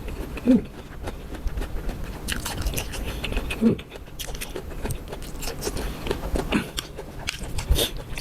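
A person eating close to the microphone: biting and chewing food, with irregular crunches and wet mouth clicks and a couple of short grunts or hums.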